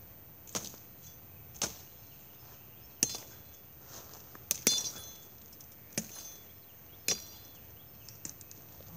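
An 18-inch Ozark Trail machete chopping through brush and saplings: about eight sharp chopping strikes at uneven intervals. The loudest come about three seconds in and as a quick double around four and a half seconds.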